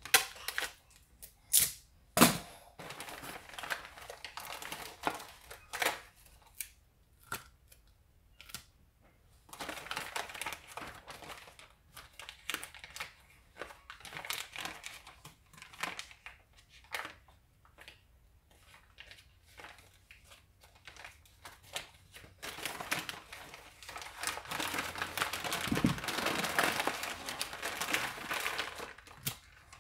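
Gift wrapping paper and tissue paper crinkling and rustling as hands fold them around a small present. A few sharp paper snaps come in the first couple of seconds, the loudest sounds here, and near the end the crinkling becomes denser and continuous.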